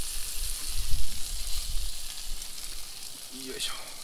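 Tuna collar and shiitake sizzling in a hot cast-iron skillet over a gas burner, a steady frying hiss that thins in the second half. Dull low bumps sound in the first two seconds.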